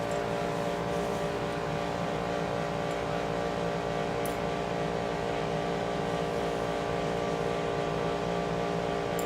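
A steady droning hum made of several fixed tones, holding the same level throughout, with a faint small click about four seconds in.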